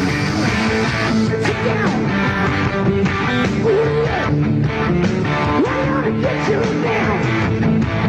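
Live hard rock band playing loud: a distorted lead electric guitar bending notes over drums and bass.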